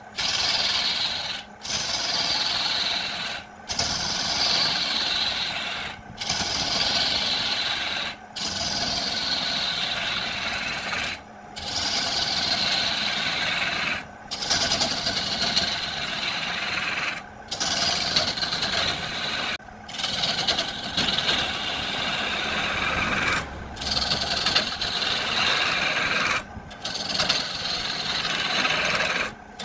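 A tool rasping and scraping against wood, in a string of short passages of two to three seconds each, broken by brief silent gaps. In each passage the high scratchy hiss slides down in pitch.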